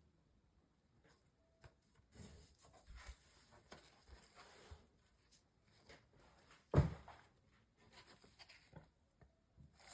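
Small clicks, taps and rustles of hands and tools handling a MacBook Pro during a battery replacement, with one louder knock about two-thirds of the way through.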